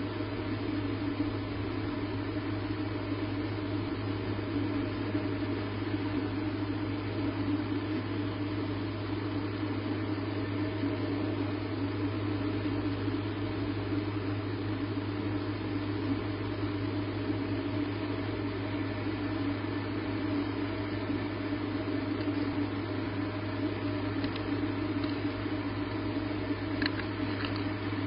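Steady electrical hum with hiss from a wildlife nest camera's microphone, unchanging throughout, with a few faint ticks near the end.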